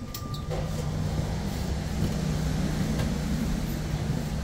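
Inside an AVE high-speed train carriage: a steady low hum with a rumble beneath it, which begins about half a second in. It follows a few sharp clicks near the start around the glass gangway doors between the cars.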